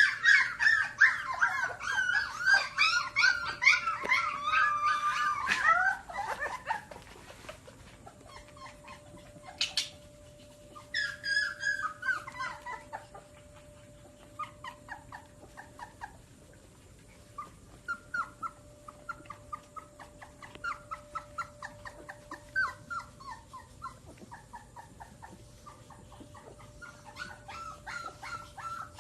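Dog whining and whimpering in high, wavering calls. The calls are loud and continuous for the first six seconds or so, then fall to softer, scattered whimpers and yips.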